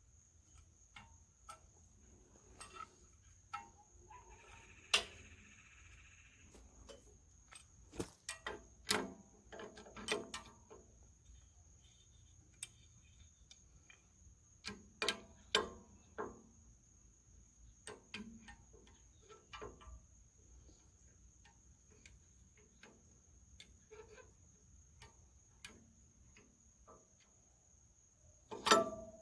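Irregular metal clinks, taps and knocks as a C-clamp and hand tools are fitted against the flywheel hub and crankshaft end of an International Harvester Type M 6 hp hit-and-miss engine, working to free a stuck gib key. The loudest knocks come about five seconds in and again just before the end, over a faint steady high-pitched tone.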